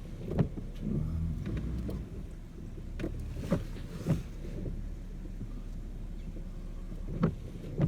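Vehicle engine running at low speed while it is backed up to park, with a few scattered knocks and clicks.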